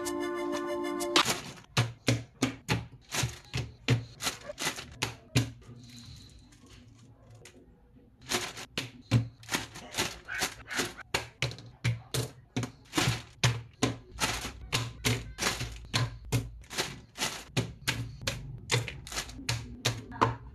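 Plastic model-kit parts, runners and bags being handled on a tabletop: a fast run of sharp plastic clicks and taps, broken by a couple of quieter seconds, then resuming.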